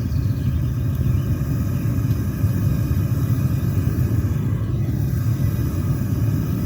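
Homemade venturi propane burner on a metal-melting furnace running with a steady low rumble. The noise comes from the flame having lit down inside the burner tube instead of at its mouth.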